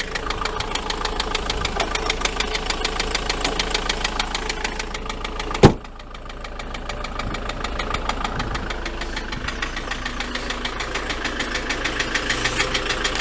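Ford Transit van engine idling with a fast, even knocking rattle whose cause is unknown, after the van has stood unused for weeks. A door slams once just before the middle, and the engine then sounds duller for a while.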